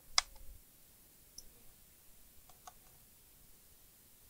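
Small clicks of a screwdriver and fingers handling a laptop's plastic base while screws are taken out: one sharp click just after the start, then a few faint ticks about two and a half seconds in.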